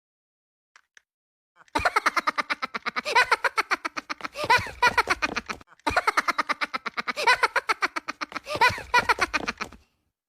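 Minions' high-pitched cartoon laughter, a rapid run of giggling pulses gliding up and down in pitch. It starts about two seconds in and plays twice, the second burst repeating the first after a brief gap.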